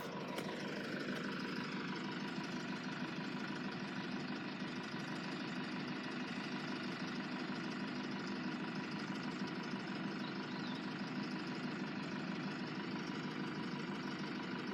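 A motor vehicle engine idling steadily, with a tone that falls in pitch over the first two seconds before the sound settles into an even hum.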